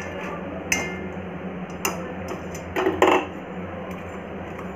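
Wire-mesh skimmer clinking and knocking against a metal pan while jalebis are stirred in sugar syrup: a few separate clinks, the loudest pair about three seconds in.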